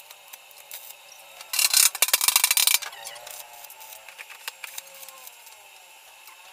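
Stick (arc) welder striking an arc and running a short tack weld on a steel tank seam: a crackling, sputtering arc for a little over a second, followed by a few light clicks.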